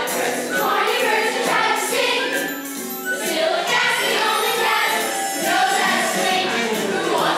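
A children's chorus singing a show tune together over instrumental accompaniment.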